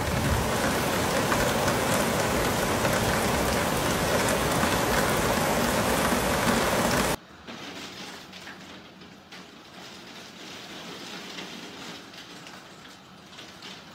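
Heavy rain pouring down in a loud, dense hiss. About seven seconds in it cuts abruptly to a softer, quieter stretch of rain.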